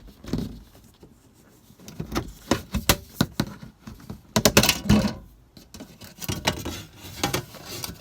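Irregular plastic clicks and rattles as a small access hatch on a van's dashboard is opened and handled, in a run of sharp taps and scrapes.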